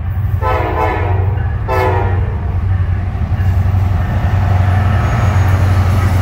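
Norfolk Southern freight diesel locomotive's horn sounding twice, a blast of about a second then a short one, over the steady low rumble of the locomotive engines. Wheel and rail noise builds over the second half as the train pulls past close by.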